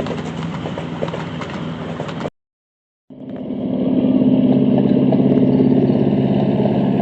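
Miniature railway train running, a steady engine hum with a clatter of clicks over it. About two seconds in the sound cuts out for under a second, then an engine comes back in running steadily, building up over about a second.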